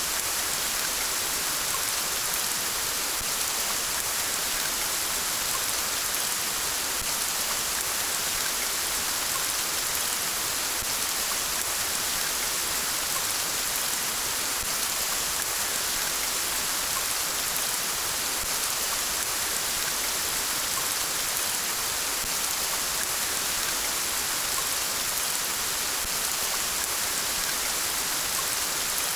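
Steady rain falling, an even hiss with a fine patter of drops that does not change.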